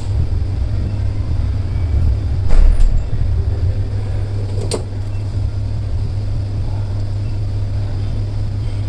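Steady low hum, with a brief louder knock about two and a half seconds in and a sharp click a couple of seconds later.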